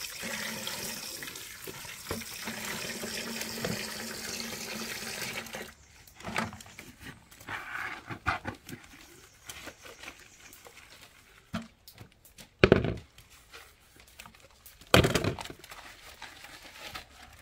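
Water running steadily from an outdoor shower, cutting off about six seconds in. After that come scattered small knocks and two loud thumps, one near the middle and one near the end.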